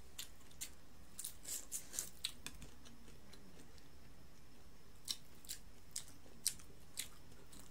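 Close-up eating sounds: sharp, crisp clicks and crunches of chewing and mouth noises while eating buttered shrimp. There is a cluster of them in the first two seconds or so and a few spaced-out ones later.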